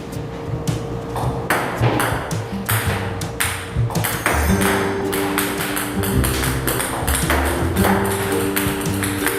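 Background music: held notes over a steady percussive beat.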